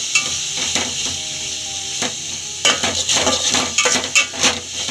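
Metal spatula scraping and knocking against an aluminium pot while chopped onion, peas and tomato sizzle in hot oil, being stir-fried with masala. The scrapes and knocks come fastest in the second half.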